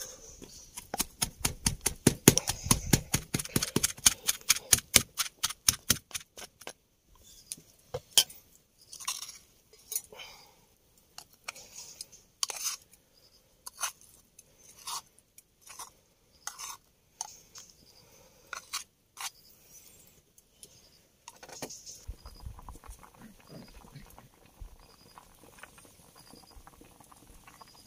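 Pestle pounding dry-roasted chilies in a mortar: a fast, even run of strikes for about six seconds, then slower, scattered single strikes, fading to faint noise near the end.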